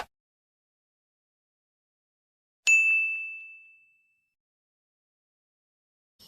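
A single bell-like ding, one high ringing tone struck once a little under three seconds in and dying away over about a second and a half, in otherwise dead silence.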